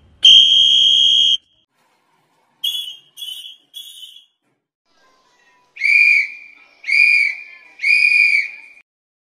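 Whistle blasts: one long blast, then three short ones, then three longer, lower-pitched blasts about a second apart.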